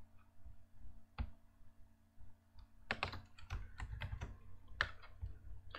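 Computer keyboard typing: a single key press about a second in, then a quick run of keystrokes from about three seconds in.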